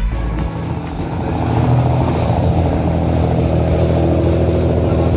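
Boat engine running steadily close by over rushing water. It grows louder over the first couple of seconds, then holds.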